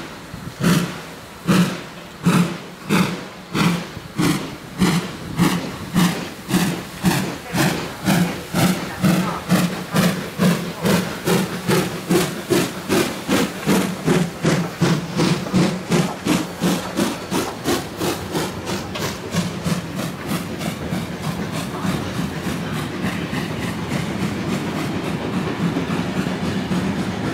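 Finnish Hr1 'Ukko-Pekka' Pacific steam locomotive no. 1009 pulling away, its exhaust chuffing loud and even, the beats quickening from about one and a half a second to about three as it gathers speed. In the last few seconds the beats blur into the steady rolling of the train's wagons going by.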